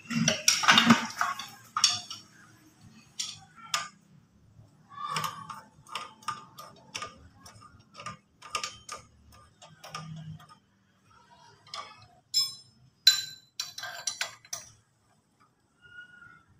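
Irregular metallic clicks and knocks from a hand working the foot levers and engine parts of a 1976 motorcycle, with the engine not running. The loudest clatter comes just after the start and again in a cluster about twelve to fifteen seconds in.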